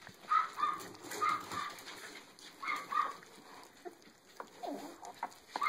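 Six-week-old miniature dachshund puppies chewing and tearing at raw chicken drumsticks, with short high squeaks from the puppies every second or so.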